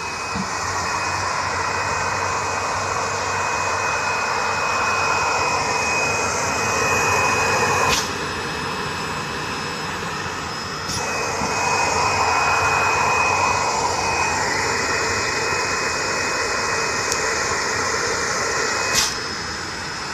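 Vacuum loader conveying corn powder, its suction motor running with a steady rush and a thin high whine. About eight seconds in it cuts back with a click and the whine stops; about three seconds later it starts again with a click. A sharp click comes near the end.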